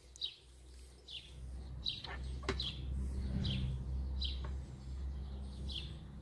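A small bird chirps over and over, short high chirps that fall in pitch, about one every second. A low rumble swells in the middle, and two sharp clicks come about two seconds in.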